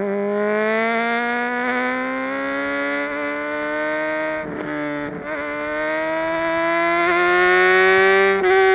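2009 Honda CBR600RR inline-four running through a Mivv X-Cone dual exhaust, pulling steadily with its pitch rising slowly. The pitch dips briefly twice a little past halfway and once more near the end.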